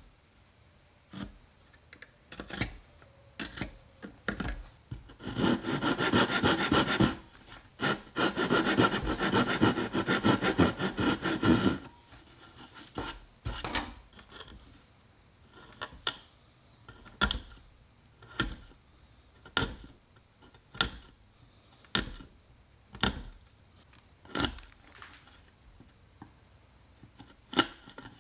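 Hand saw cutting two kerfs across a softwood board, about two seconds and then about four seconds of quick back-and-forth strokes, followed by a wood chisel cutting out the slot between the kerfs with sharp separate knocks about once a second.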